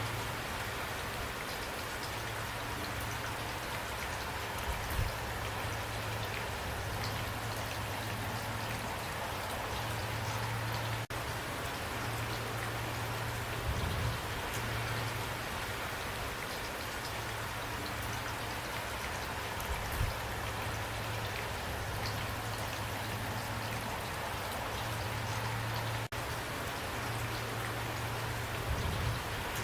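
Steady rain falling, a continuous hiss with individual drops ticking through it and a low hum underneath that comes and goes.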